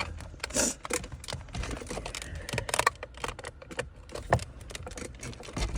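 Irregular plastic clicks and rattles of wiring connectors being pushed into the back of a 2017 Kia Sedona's climate control panel, with the loose panel knocking against the dash trim.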